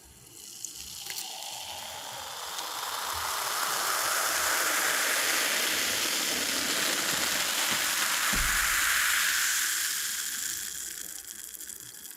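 Cola being poured, its stream and fizzing bubbles building up over the first few seconds, holding, then tapering off near the end. There is one brief low thump about eight seconds in.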